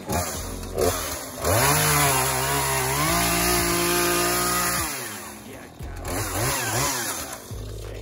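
Chainsaw cutting through tree branches: the motor speeds up, runs at a steady high speed for about three seconds, then winds down, followed by a couple of short revs.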